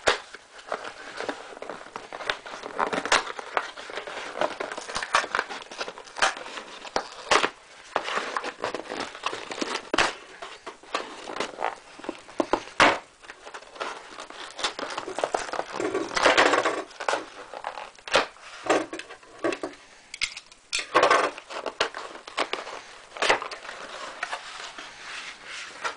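Packaging being unwrapped by hand: plastic and wrapping crinkling and crackling, with many sharp clicks and knocks at irregular times and denser rustling in a few spells.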